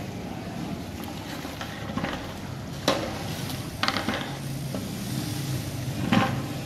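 A long metal stirrer churning a large aluminium pot of sizzling masala, stirring in soaked fried onions, with the stirrer knocking against the pot three times.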